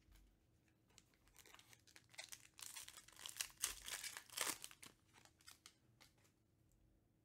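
A foil Panini Prizm UFC trading-card pack being torn open and crinkled by hand: a run of crackling rustles, loudest in the middle, thinning to a few faint clicks near the end.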